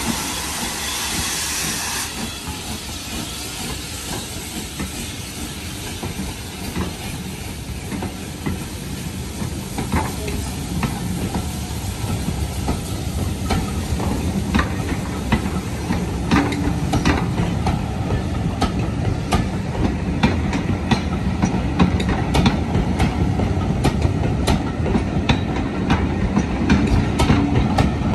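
Steam hiss from a Hunslet Austerity 0-6-0 saddle-tank locomotive that cuts off about two seconds in, then the train's low rumble growing louder as it moves, with wheels clicking over rail joints, the clicks coming quicker and quicker.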